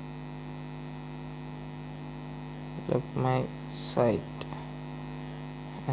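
Steady electrical mains hum with a low buzzing pitch, picked up by the recording chain. Near the middle it is briefly joined by a voice.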